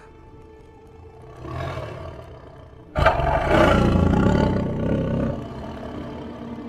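Lion roaring: a short growl about a second and a half in, then a loud roar that starts suddenly about three seconds in and lasts a little over two seconds.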